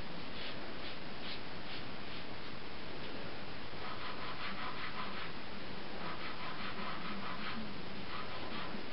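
A soft pastel stick scratching back and forth on drawing paper in runs of quick strokes, the densest in the second half, over a steady hiss.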